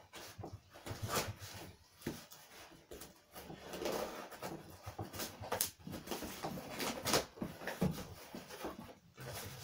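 Packing tape on a cardboard box being slit with a small knife and pulled off, then the cardboard flaps opened: irregular scratching, tearing and rustling of tape and cardboard with a few sharp strokes.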